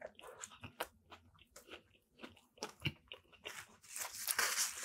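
Close-up chewing of a mouthful of sandwich, with small wet clicks and crunches. Near the end comes a louder rustle, the paper sandwich wrapper being handled.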